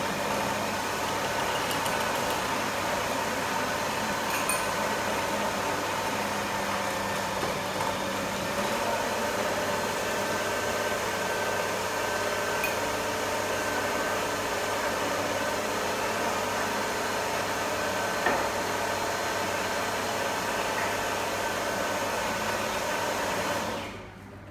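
Electric food processor motor running steadily as it blends a sticky date, nut and oat mixture, then switched off near the end.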